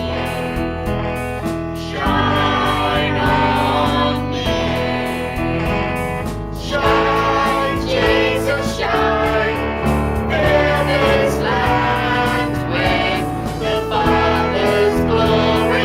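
Worship song: a group of voices singing over instrumental accompaniment.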